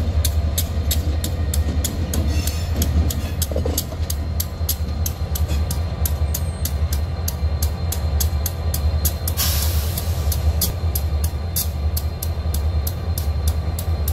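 CSX diesel locomotives rolling slowly past, their engines giving a deep steady rumble. A regular clicking runs at about three to four a second, and there is a short hiss about nine seconds in.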